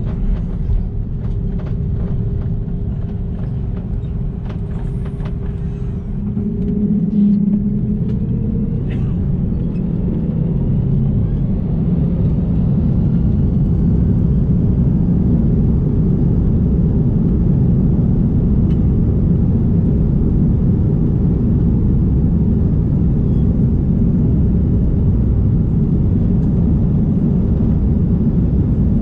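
Airbus A330's jet engines heard from inside the cabin, spooling up to takeoff thrust with a rising whine that settles into a steady high tone, over a loud, growing rumble of the takeoff roll. A few light clicks and rattles in the first several seconds.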